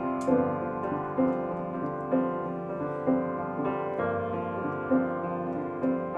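Jazz piano music played through a JBL Charge portable Bluetooth speaker and picked up by a microphone, with accented notes about once a second.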